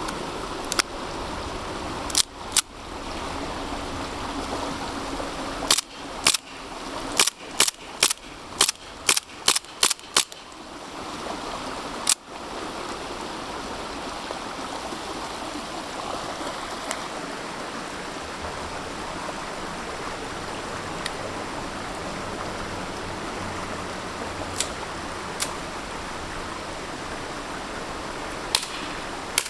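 WA Colt M1911A1 gas blowback airsoft pistol firing: a few single shots, then a fast string of about ten shots at roughly two a second, one more shot a couple of seconds later, and a few faint clicks near the end. A steady hiss runs underneath.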